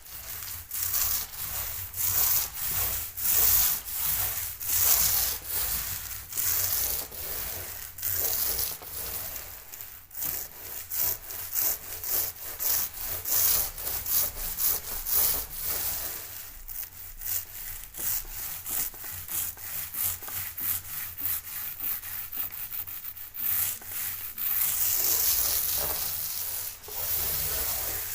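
Hand sanding of dried filler over a plasterboard repair: abrasive paper scrubbed back and forth in quick, even strokes, which speed up after the middle of the stretch.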